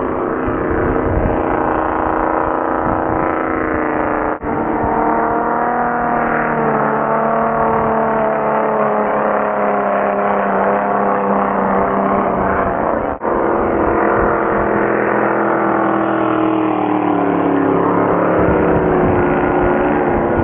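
Racing hydroplane engines at full throttle as the boats speed past, their pitch sliding up and down. The sound cuts out for an instant twice.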